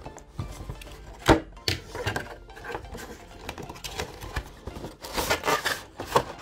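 A toy playhouse's packaging being handled: scattered taps and knocks, with a sharp knock about a second in and a stretch of rustling and scraping near the end.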